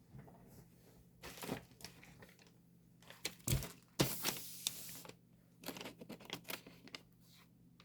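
Plastic photocard sleeves and packaging crinkling and rustling as cards are handled, in short irregular bursts, loudest about four seconds in, over a faint steady low hum.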